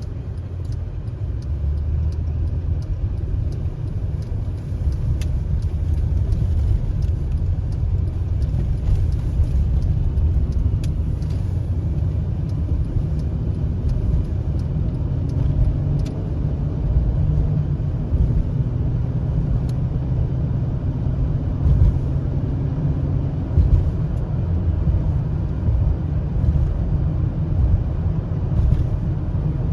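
A car driving, with a steady low road-and-engine rumble and a few faint clicks.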